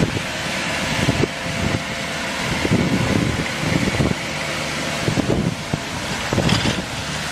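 Crawler tractor's engine running steadily as it pulls a rotary puddling harrow, with wind buffeting the microphone in irregular low gusts.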